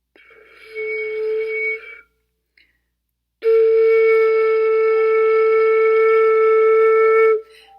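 Flute headjoint blown on its own, two notes. The first is short and airy, with a lot of breath noise over a weak tone. About three and a half seconds in comes a long, steady, clear tone lasting about four seconds, which then stops cleanly.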